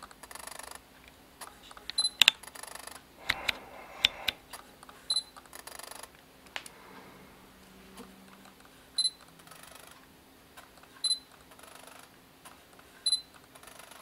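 Autofocus of a Sigma lens on a Sony A7R II through a Sigma MC-11 mount converter, repeatedly driven to focus: short clicks and a brief rattling chatter as it hunts and locks, with the camera's focus-confirm beep five times. After focus lock there is a jittery mechanical noise that the owner takes for a fault in the focus mechanism when used with the MC-11.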